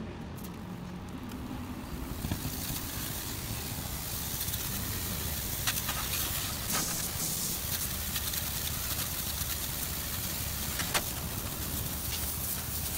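High-pressure water jet hissing as it sprays against a truck radiator's core, starting about two seconds in, over the steady low hum of the pressure-washer motor.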